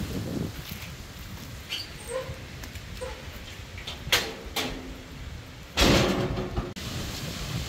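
Storm wind gusting over the microphone as a low rumble, with a few short knocks and creaks. About six seconds in, a loud burst of noise lasts under a second and cuts off suddenly.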